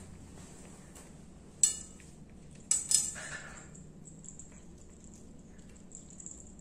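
A few sharp metallic clinks, one about a second and a half in and two close together near the three-second mark, each ringing briefly: a cat's small collar bell and tag knocking against a ceramic plate as she eats.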